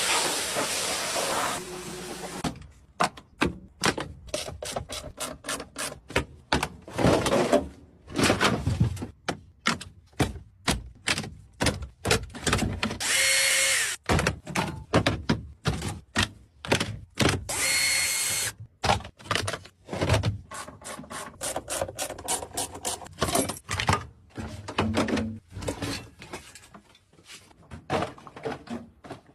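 Many short bursts of power-tool whirring and knocking in quick succession. Two longer bursts about halfway through carry a steady high motor whine.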